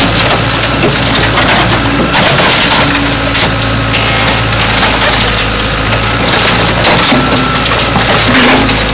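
A backhoe's engine running under load while its bucket crushes a car body, with continuous crunching and crackling of sheet metal and breaking parts.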